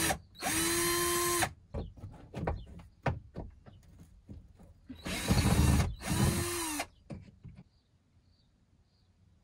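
Cordless drill running in short bursts: one of about a second, starting half a second in, then two more close together about five seconds in. The motor winds down in pitch at the end of each burst, with light knocks and clicks between bursts.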